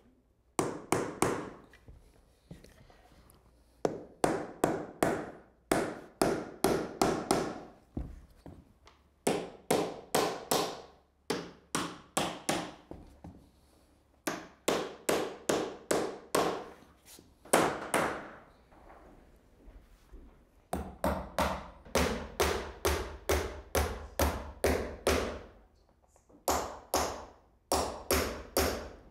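A hammer taps repeatedly on wood, driving a glued floor nosing board tight against the floorboards. The taps come several a second, in runs broken by short pauses.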